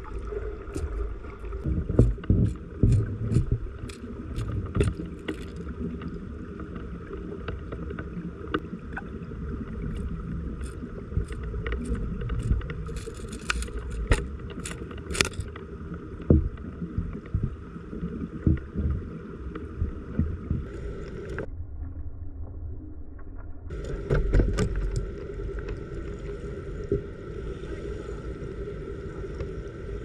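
Mountain stream heard underwater through a GoPro's waterproof housing: a muffled, steady rush of current with many sharp ticks and knocks. The sound turns thinner and duller for about two seconds a little past two-thirds of the way in.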